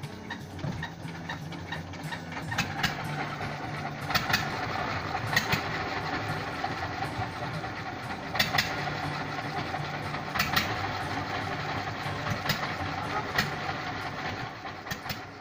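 A fishing boat's engine running steadily at idle, with a few sharp knocks, mostly in pairs, every second or two.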